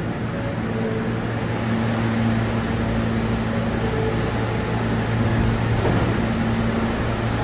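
New York City subway train running at the station: a steady mechanical hum with a higher whine that comes and goes.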